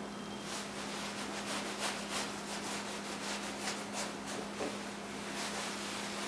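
A slick, a wide timber-framing chisel, paring shavings off the face of a wet green white pine tenon: a quick, irregular series of short scraping strokes, several a second.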